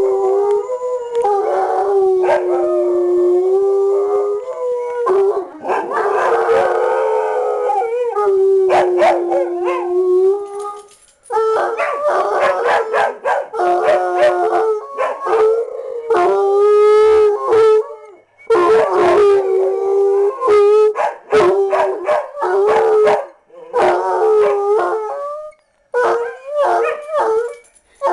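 A black-and-tan hound and a speckled heeler howling: long, held howls in roughly the first ten seconds, then shorter howls broken by brief pauses.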